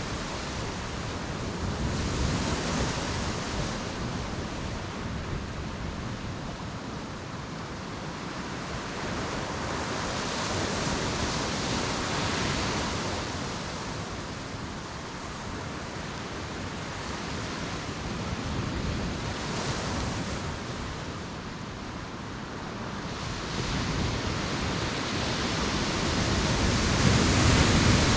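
Ocean surf breaking on a beach. The rushing wash swells and eases every several seconds and is loudest near the end.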